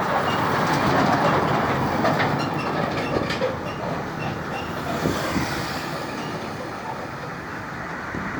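A heavy vehicle passing close by: a steady rushing noise that swells over the first second or two and then slowly fades, with a few faint knocks.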